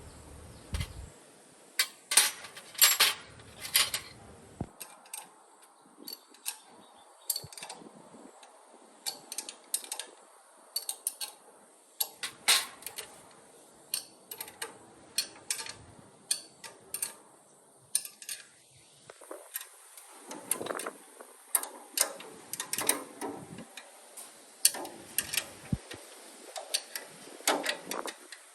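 Irregular sharp clicks and clinks of metal parts and hand tools being handled during work on a mini milling machine, dozens of separate knocks with louder clusters a couple of seconds in and again in the later part.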